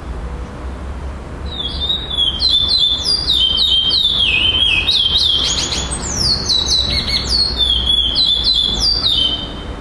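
Male curió (chestnut-bellied seed finch) singing: a fast run of clear whistled notes, each sliding down in pitch, with phrases repeated, starting about a second and a half in and stopping near the end.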